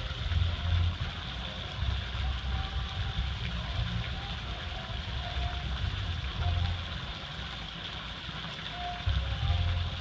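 Thin jets of a stone fountain splashing steadily into its pool, a continuous watery hiss. Irregular bursts of low rumble come and go throughout, loudest just after the start and about nine seconds in.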